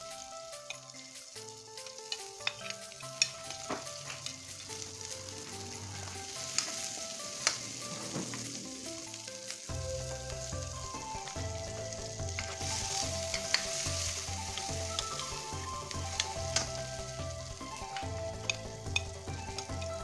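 Chopped garlic and red onion sizzling as they fry in a metal wok, stirred with a metal spatula that gives sharp clicks now and then against the pan. Soft background music with a melody plays throughout.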